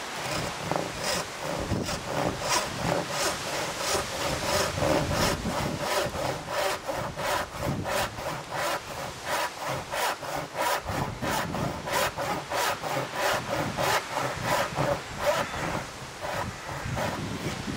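Disston No.5 brass-backed backsaw, freshly filed with 6 degrees of rake and 5 degrees of fleam, cutting a hardwood block with steady back-and-forth strokes, about two or three a second.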